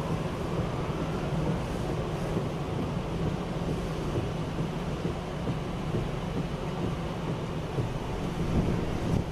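Steady rush of hurricane wind and rain around a moving car, over the low, even drone of the car on the road.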